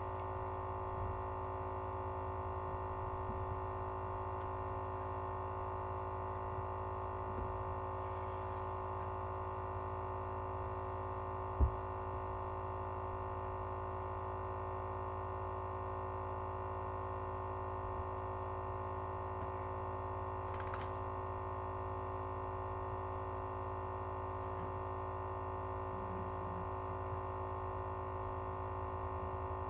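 Nebulizer air compressor running with a steady electric hum, with a single knock about twelve seconds in.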